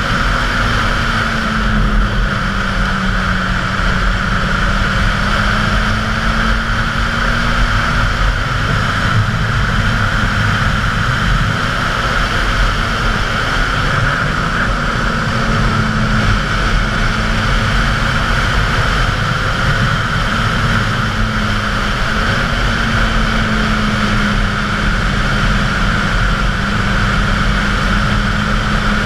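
Suzuki GSX-R 750's inline-four engine running at a steady cruise, its note drifting gently up and down, under a constant rush of wind and road noise.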